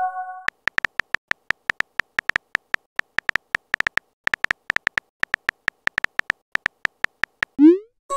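Messaging-app keyboard tap sounds: many quick, uneven clicks as a text message is typed letter by letter, ending in a short rising whoosh as the message is sent near the end. It opens on the fading tail of a chime of several steady tones.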